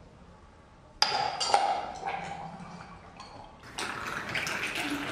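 A glass bottle clinking against a steel jigger about a second in, then liquid running from the bottle's pour spout into the steel jigger, louder near the end.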